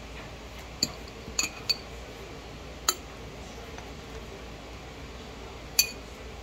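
Metal fork clinking against the rim of a glass jar while kimchi is scooped into it: about six short, irregular clinks with a brief glassy ring, the loudest near the end.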